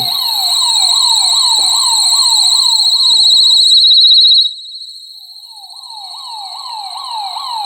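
Burglar alarm sirens driven by a Paradox alarm panel, sounding in alarm. A shrill high-pitched tone warbles steadily while a second siren sweeps up and down about two to three times a second. The sweeping siren drops out for a couple of seconds past the middle and then starts again, while the shrill tone carries on.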